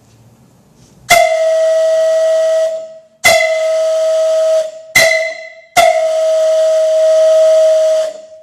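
Steam whistle blown in the railroad grade-crossing signal: two long blasts, a short, and a long. It sounds one steady pitch with a hissy edge, and each blast starts sharply.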